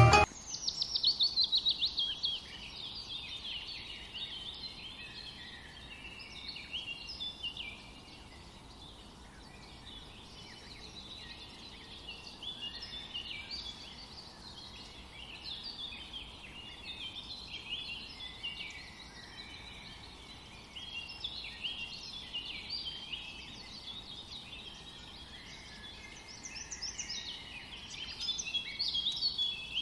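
Hot oil sizzling and crackling in a frying pan as chopped onion and then chicken mince fry in it. It is loudest for the first couple of seconds and swells again near the end, when the chicken mince goes in.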